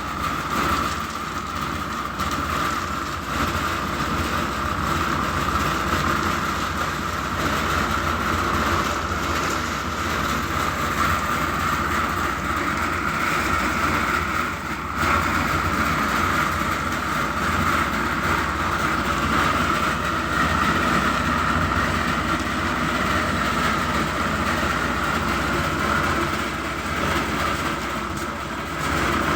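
An engine-driven construction machine runs steadily, with a constant whine over a low rumble.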